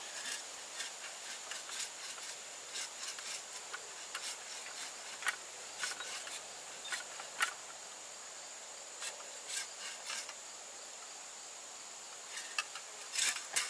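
Bow saw rasping through a tree trunk in slow, uneven strokes with pauses between them, near the end of the cut.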